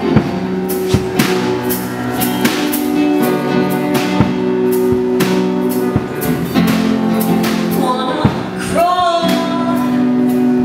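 Live band playing: acoustic guitar and sustained keyboard chords over regular drum hits, with a woman's voice coming in singing about eight seconds in.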